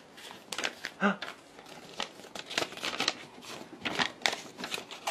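A sheet of paper being torn by hand in a series of short rips and crinkles. A brief baby vocal sound comes about a second in.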